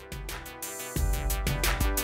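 Background music with a steady electronic drum beat; the bass comes in about a second in.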